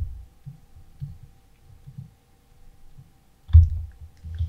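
A few scattered computer mouse clicks with dull low thuds on the desk, the loudest about three and a half seconds in, over a faint steady electrical hum.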